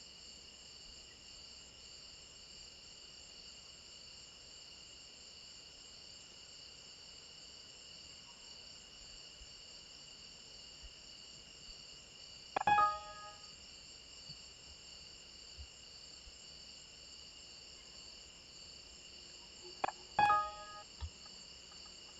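Two short computer alert chimes, about 13 and 20 seconds in, as dialog prompts pop up while the PLC program is verified and downloaded, over a steady high-pitched background drone.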